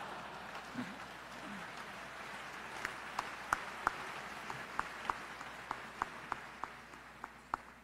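Audience applauding with some laughter, the clapping thinning after a few seconds into scattered single claps that fade away.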